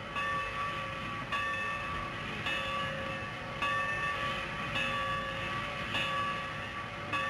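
A locomotive bell ringing steadily, one clang a little more than once a second, each stroke ringing on into the next.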